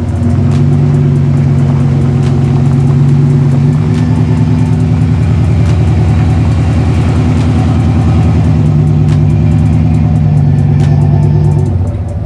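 Engine of a second-generation Ram pickup running steadily under load while driving off-road, its pitch stepping up slightly about four seconds in.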